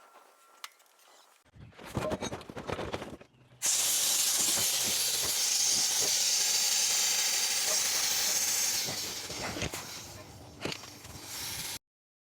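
A few seconds of clattering, then a loud, steady hiss of rushing air for about five seconds, which tapers off with a few clicks before cutting off abruptly.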